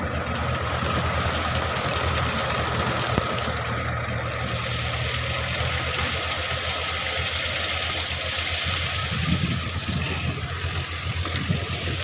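Tractor-driven wheat thresher running steadily: the tractor's diesel engine turning the threshing machine at a constant pace, a steady hum with a faint whine.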